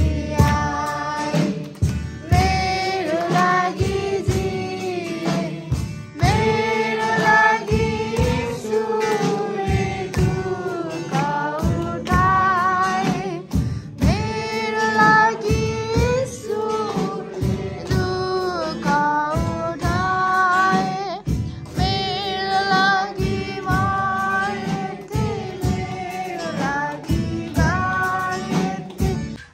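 A song: singing voices carrying a melody over a steady beat.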